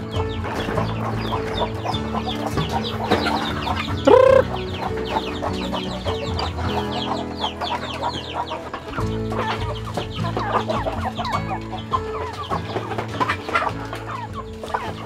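A flock of native chickens clucking and calling while they feed, with one loud short rising squawk about four seconds in. Background music plays underneath.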